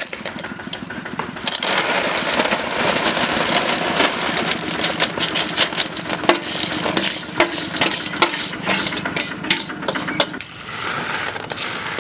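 Hundreds of small sea snail shells clattering as they are tipped and pushed with a spoon out of a metal bowl onto a sheet. The rattle of shells becomes a dense, continuous clatter about a second and a half in and thins out to scattered clicks near the end.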